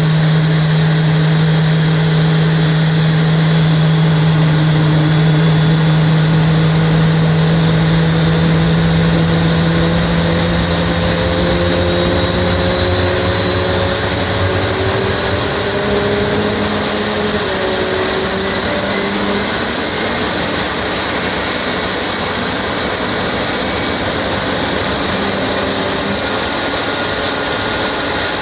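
A Boeing 737 MAX's CFM LEAP-1B turbofan running steadily in a ground run of the parked aircraft. It makes a loud, even jet roar with several tones that drift slowly in pitch, and a low hum fades out about halfway through.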